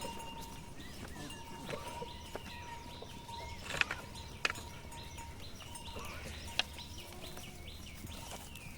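A herd of goats moving along a forest trail: scattered sharp clicks and knocks of hooves on stones, with short bird chirps and a faint steady tone behind.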